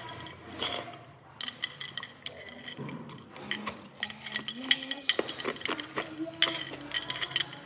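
Hard ice being bitten and crunched close to the mouth, a quick run of sharp cracks and clinks throughout.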